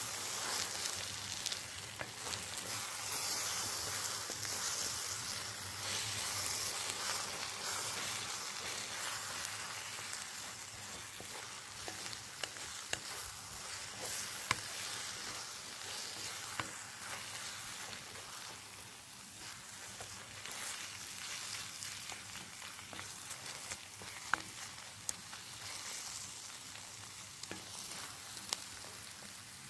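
Sliced onions and tomatoes sizzling in a metal wok while a wooden spatula stirs and scrapes them, with occasional sharp ticks. The sizzle grows somewhat quieter toward the middle.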